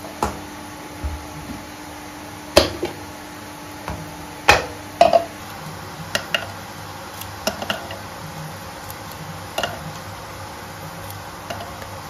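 Hard plastic knocks as a blender cup and its parts are set down on a stone countertop, the loudest about two and a half and four and a half seconds in. Lighter ticks follow as cut pieces of garlic drop into the empty plastic blender cup.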